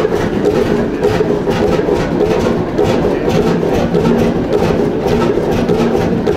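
Large vintage stationary engine running steadily, a rapid even knocking over a low hum.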